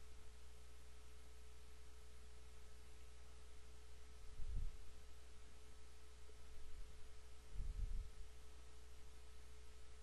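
Quiet background of the recording: a faint steady electrical hum with a thin constant tone, broken by two soft low bumps, one about halfway through and one near the end.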